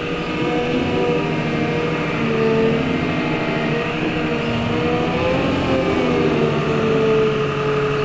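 Claas Torion 1511 wheel loader's diesel engine running steadily under work, its note rising and falling a little as the load changes.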